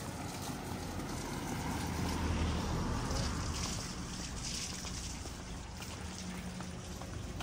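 Outdoor street ambience: a steady rushing noise that swells from about two to five seconds in.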